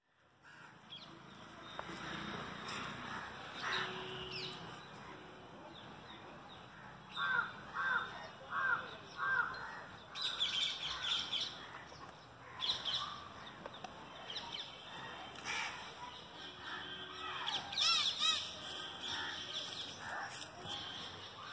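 Birds calling over steady outdoor background noise. A run of four evenly spaced calls comes about a third of the way in, a cluster of higher calls follows shortly after, and a quick series of high calls comes near the end.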